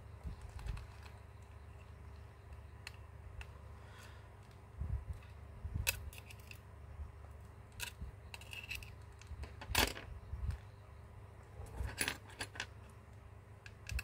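Scattered light clicks and taps of small hand tools and tiny screws against a smartphone's frame as it is taken apart, with a couple of sharper clicks about ten and twelve seconds in.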